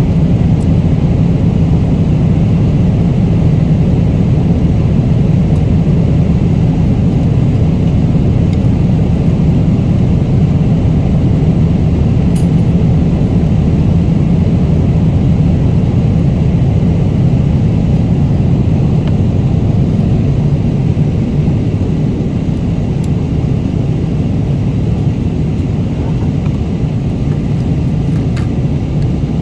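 Steady airliner cabin noise in flight: the constant low rumble of jet engines and airflow, with a few faint clicks on top.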